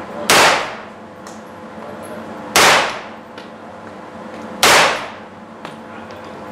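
Three single gunshots from a compact submachine gun, about two seconds apart, each echoing briefly in the enclosed indoor range.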